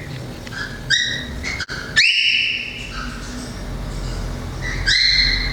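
Cockatiel calling: a few short chirps and two longer whistled calls, each rising sharply at the start and then held.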